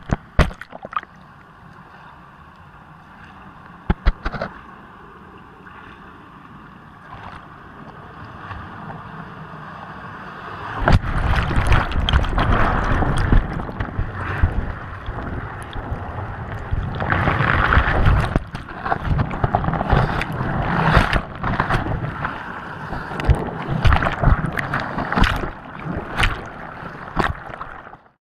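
Water rushing and splashing around a camera mounted inside a turning Archimedes screw fish pass, with a few sharp knocks in the first seconds. About eleven seconds in the water grows much louder, with repeated surges of splashing, and it cuts off suddenly near the end.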